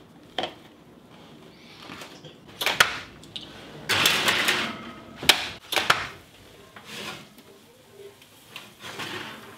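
Metal baking sheet clattering onto an oven rack, with the clunks of the oven door: a few sharp knocks and clicks, and a brief scrape of the pan sliding in about four seconds in.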